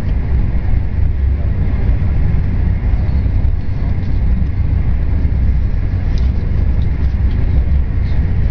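Steady low rumble and rush of a seventh-generation Talgo passenger coach running at about 250 km/h, heard from inside the cabin.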